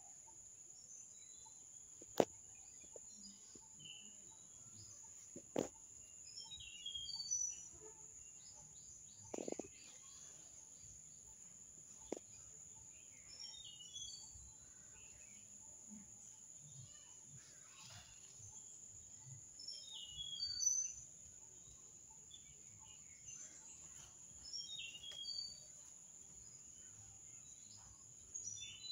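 Small birds chirping now and then over a steady high whine, with a few short rustles of a hand scraping and piling sand and several sharp clicks.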